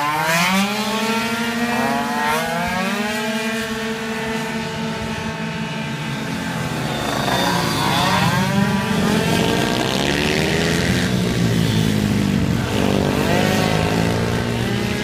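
Racing scooters' small engines running at high revs through a hairpin: one engine note climbs steeply as a scooter accelerates out of the bend at the start. Around halfway a group of scooters passes, their engine notes rising and falling over one another.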